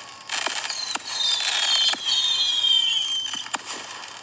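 Fireworks going off: several high whistles at once, falling in pitch over about three seconds, with a few sharp pops around them.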